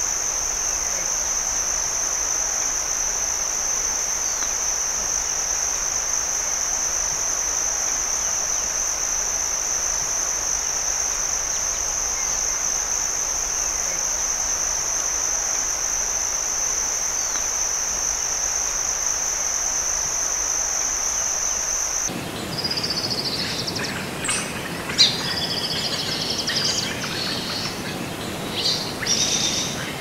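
Insects droning in one steady, unbroken high tone over an even hiss, cut off suddenly about three-quarters of the way through and replaced by birds chirping with quick short calls.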